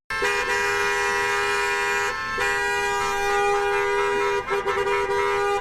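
Vehicle horns honking in long, steady blasts, a two-tone chord held with short breaks about two seconds in and again near four and a half seconds.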